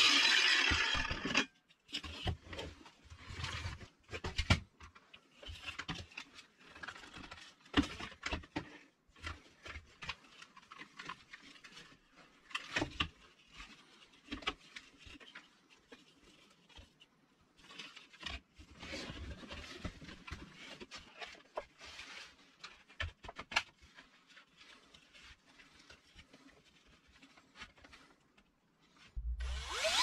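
An angle grinder runs and stops about a second and a half in. Then come scattered knocks, taps and rubbing of hard plastic as the reel unit from a vacuum cleaner is handled and fitted into a length of PVC pipe. A cordless drill starts just before the end.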